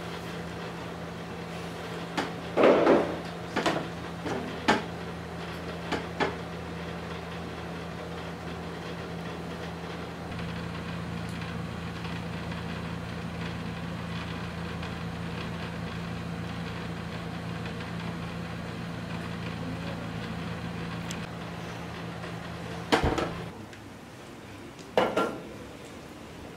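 Steady low electrical hum of room ambience, with a few sharp knocks and bumps a few seconds in. The hum stops suddenly near the end, and two more knocks follow.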